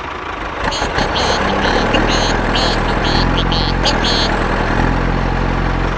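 A small engine running steadily, its low hum shifting pitch a couple of times, with a quick series of short rattling bursts on top from about a second in.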